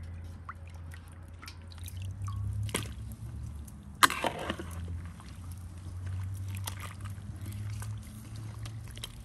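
Water sloshing and dripping as sliced fruit is handled in water, first rubbed by hand in a basin, then stirred in a large aluminium pot with a metal skimmer. There is a sharp knock about four seconds in.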